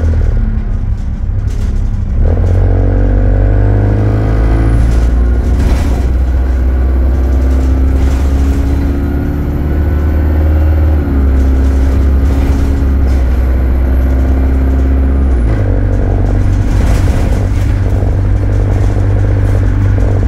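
Alexander Dennis Enviro200 bus engine pulling under load as heard inside the bus, its pitch climbing steadily. It drops suddenly about halfway through as the automatic gearbox changes up, then drops again about three-quarters through before running on steadily. A thin high whine sounds through the middle part.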